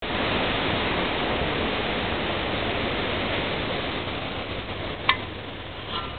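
Steady rain falling, an even hiss that eases a little in the second half. A single sharp click comes about five seconds in, and a fainter one near the end.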